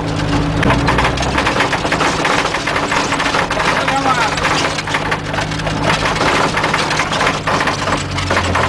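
Off-road vehicle driving over a rough dirt track, heard from inside the cab: dense, continuous rattling and knocking of the body and roll cage over the steady engine.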